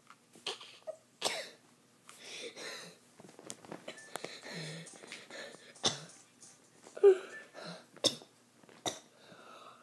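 A boy laughing in short, sharp, breathy bursts with gaps between them, some sounding like coughs.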